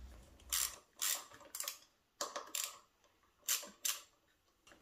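A screwdriver working the tight screws of a motorcycle handlebar switch housing: a series of about seven short scraping noises in the first four seconds.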